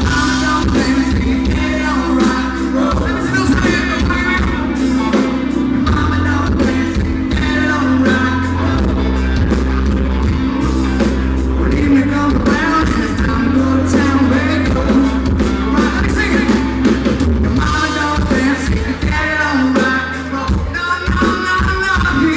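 Country band playing a song live, a lead singer over drums, guitars and bass. The audience recording sounds poor and bass-heavy.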